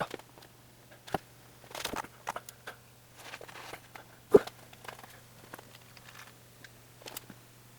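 Scattered light clicks and knocks, the sharpest one about four and a half seconds in, over a faint steady hum.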